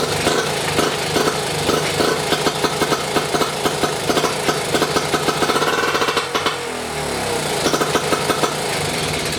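British Seagull single-cylinder two-stroke outboard motor running with a steady, rapid firing beat; its note changes briefly about seven seconds in. It runs well now that the rebuilt carburettor is feeding it.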